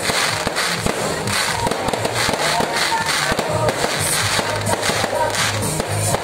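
Aerial fireworks bursting and crackling in quick succession, with music playing underneath.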